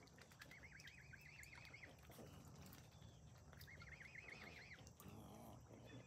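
Faint, rapid wavering peeps from young swans (cygnets), in two runs about a second long each: one starting about half a second in and one a little before the four-second mark.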